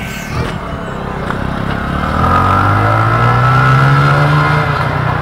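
A motor vehicle's engine passing close by, growing louder and rising in pitch as it speeds up, loudest around three to four seconds in.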